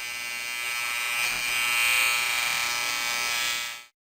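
Electric shaver buzzing steadily, growing a little louder about two seconds in, then stopping shortly before the end.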